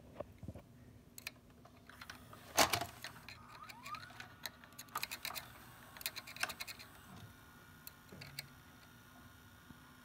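Clicking and rattling of a VCR's cassette mechanism being handled, loudest with a sharp click about two and a half seconds in. A short rising whine follows a second later, and a faint steady hum runs through the second half.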